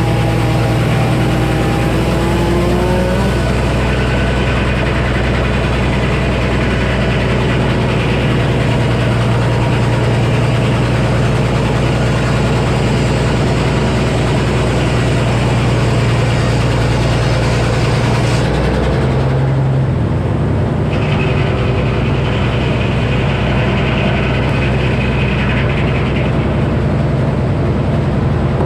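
Frick sawmill running, its engine holding a steady drone; the sound of the mill shifts about two-thirds of the way through.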